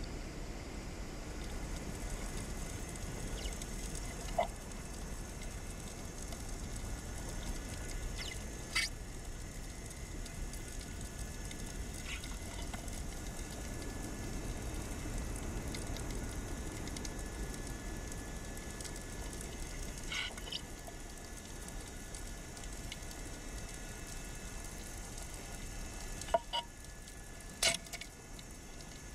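Underwater ambience: a steady low hiss with a few sharp clicks scattered through it, two close together near the end.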